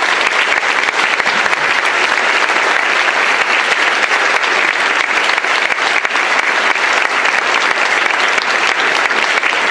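Audience applauding, a dense and steady clapping from many hands.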